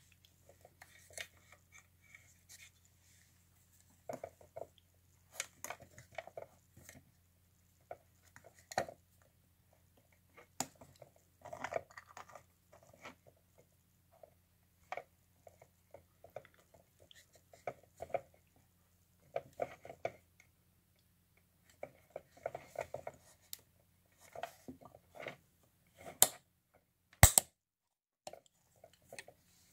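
Hands handling a USB digital microscope and its chrome stand: scattered plastic and metal clicks, rattles and scrapes as the microscope is fitted and adjusted in the stand's clamp, with two sharp clicks about a second apart near the end.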